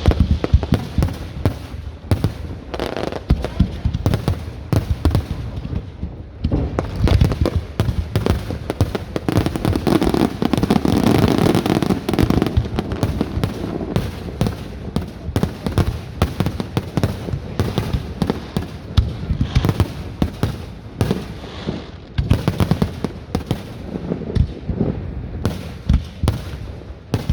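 Fireworks display: a dense, continuous run of bangs and crackles, building to a thick barrage about eight to thirteen seconds in, then thinning to separate bangs.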